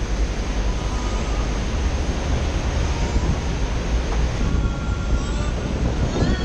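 Steady rush of water from a FlowRider surf simulator's pumped sheet wave pouring up the padded ramp, with wind rumbling on the microphone.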